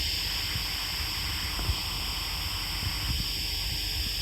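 Steady hissing static with a few faint, scattered ticks.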